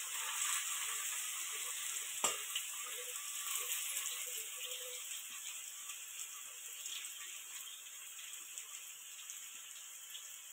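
Diced potatoes sizzling in hot oil in a steel kadhai. The sizzle slowly dies down, with a single sharp tap about two seconds in.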